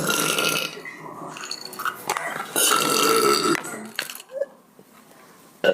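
A woman burping: a loud burp right at the start, then a longer one about two and a half seconds in that lasts about a second.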